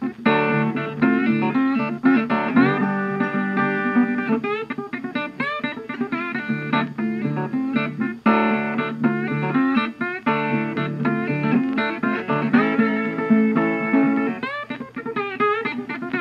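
Background music played on guitar, with some notes bending in pitch.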